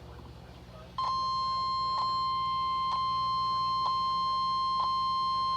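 NOAA Weather Radio warning alarm tone, a single steady high beep (the 1050 Hz tone). It starts about a second in and holds for nearly five seconds, with a faint click about once a second. It announces that a new warning is about to be read.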